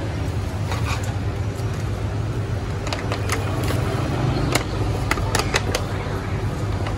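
Street ambience: a steady low rumble of traffic, with a run of sharp clicks and taps from handling containers at the stall in the second half.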